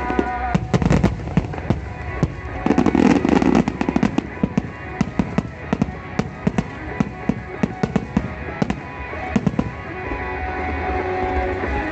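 Fireworks bursting in a rapid volley of sharp bangs and crackles, dense for the first several seconds, then thinning to scattered pops, with music playing underneath.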